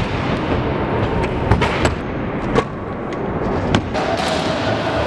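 Stunt scooters riding in a skatepark: a steady rough noise of wheels rolling on the floor and ramps, broken by several sharp clacks of decks and wheels hitting down.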